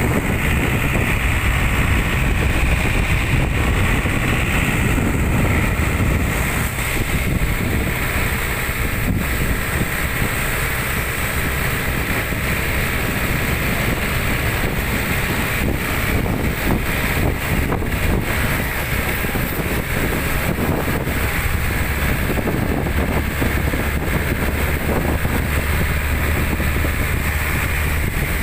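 Truck driving along a road, heard from its open cargo bed: steady engine and road noise with wind buffeting the microphone.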